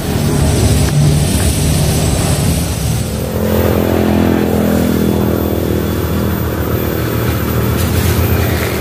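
A motor engine running steadily and unbroken.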